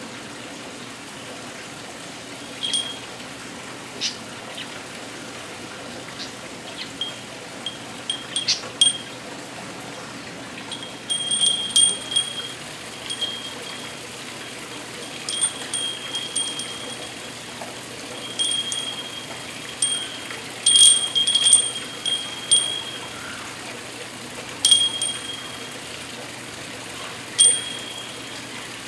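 Steel kung fu iron training rings worn on the forearms clinking against each other as the arms move, each knock ringing briefly with a bright metallic tone. The clinks come irregularly, sometimes singly and sometimes several in quick succession.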